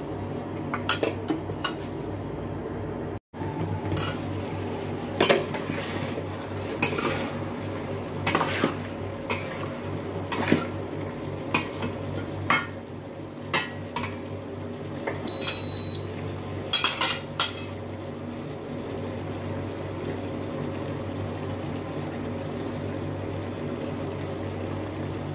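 Metal spatula clanking and scraping against a stainless steel pot while chicken pieces are stirred, in irregular knocks over a steady hum. The clatter stops about two-thirds of the way through, leaving only the hum.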